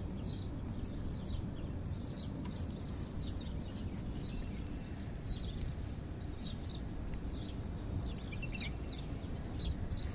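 Small birds chirping: short, high, downward chirps about two to three times a second, over a steady low background rumble.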